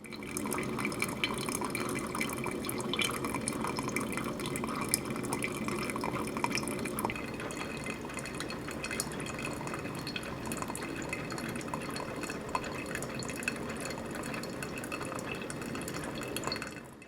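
Water pouring and trickling steadily with small drips and splashes, cutting off abruptly near the end.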